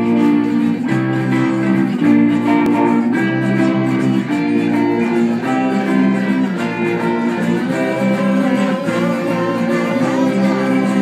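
A band playing a song, led by strummed guitars, with chords changing about every second. A wavering held note comes in over the chords about two thirds of the way through.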